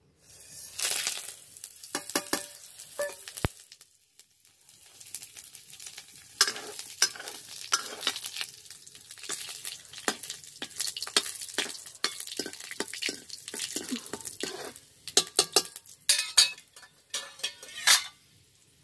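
Tadka (tempering) for kadhi: spices crackling and sizzling in hot oil, with sharp pops and spatters and a few short pauses.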